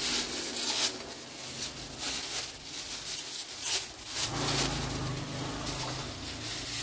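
Irregular rustling and rubbing handling noises from food preparation. About four seconds in, a low steady hum joins them.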